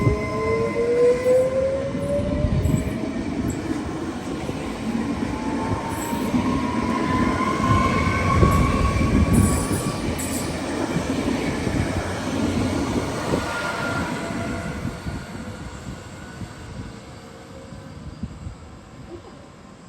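Trenitalia Pop electric train pulling away from a station: the traction drive's whine climbs in pitch as it gathers speed, over the rumble and clatter of the wheels on the rails. The sound fades in the last few seconds as the train moves off.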